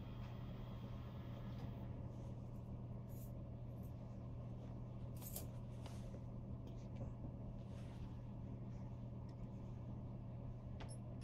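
Hardinge metal lathe running with a steady low hum and a faint higher whine; the whine drops away about two seconds in as the spindle is stopped, leaving a low steady hum. A few light clicks and knocks follow as the tailstock and drill chuck are handled and backed off.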